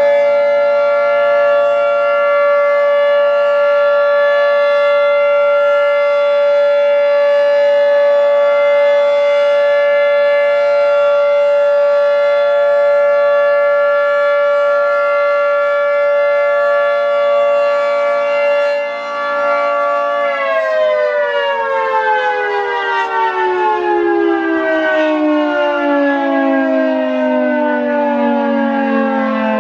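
Federal Signal 2T22 dual-tone electromechanical siren sounding a steady alert chord. About twenty seconds in it shuts off and winds down, the chord sliding steadily lower in pitch as the 3-minute alert signal ends.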